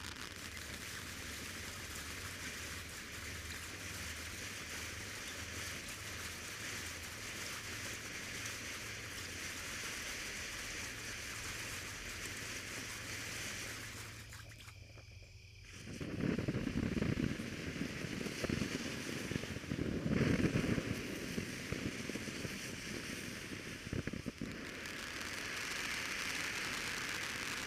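Ground firework fountain burning with a steady hissing spray of sparks. About halfway through it briefly quietens, then turns louder and rougher with dense crackling for several seconds before settling back to a steady hiss.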